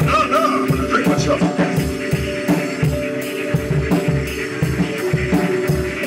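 A live screamo band playing: a drum kit beaten in a steady pulse of kick-drum thumps and cymbal strokes under held, ringing guitar notes.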